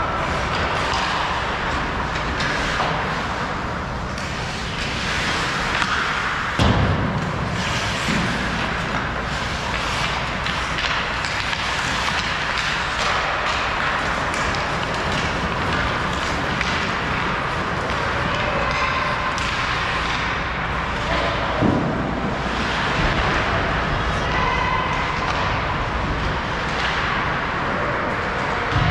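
Ice hockey game ambience in a rink: a steady wash of play noise, with sharp knocks about seven seconds in, again about twenty-two seconds in, and once more at the very end.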